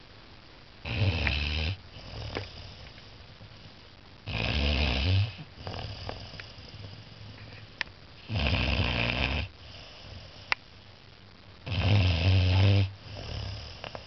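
A 14-week-old Saint Bernard puppy snoring in its sleep: four loud snores, each about a second long and coming roughly every three and a half seconds, with softer breaths between them.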